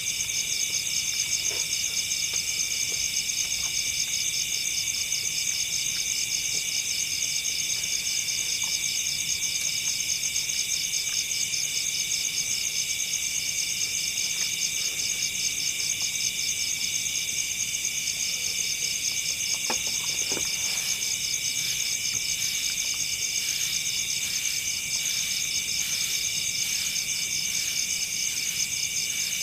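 Forest insect chorus, crickets and similar insects trilling steadily in several high-pitched layers with a fast pulse. A couple of faint knocks come about two-thirds of the way through.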